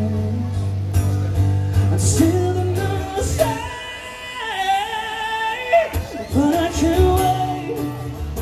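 Live singing with acoustic guitar through a PA: the singer holds long notes that bend and waver over a steady low chord.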